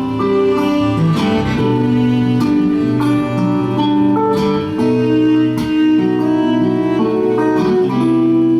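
Acoustic guitar playing an instrumental break in a folk song: picked chords, with held melody notes ringing over them.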